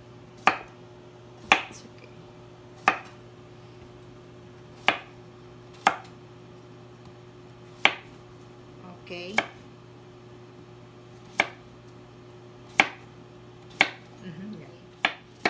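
Kitchen knife slicing a cucumber into rounds on a wooden cutting board: about eleven single sharp chops, each a separate stroke roughly one to two seconds apart.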